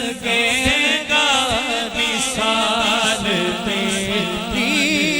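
A male voice singing a wavering, ornamented melody of a Punjabi naat over a steady low drone.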